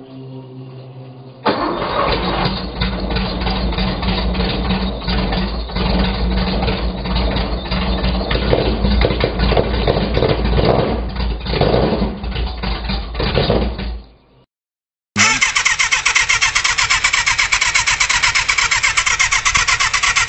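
An engine catches and runs loudly from about a second and a half in, cold-started, then stops abruptly near 14 s; after a short silence a second engine is heard running with a fast, even beat.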